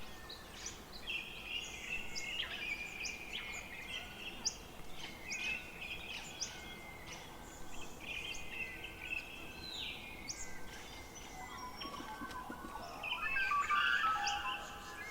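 Several forest songbirds singing at once: overlapping chirps, trills and whistled phrases, with one louder, lower-pitched song near the end.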